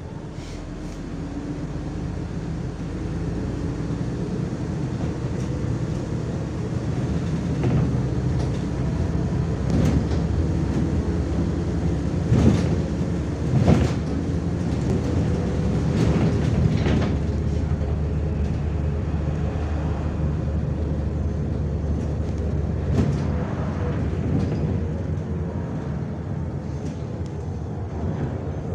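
Inside a MAZ-105 articulated city bus pulling away and driving along a street: diesel engine and road rumble build over the first few seconds, then hold steady. Body rattles and a couple of loud knocks come about halfway through.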